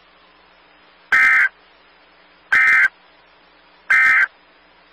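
Emergency Alert System end-of-message code: three short digital data bursts, each a harsh buzzy chirp about 0.4 s long and about 1.4 s apart, over faint hiss.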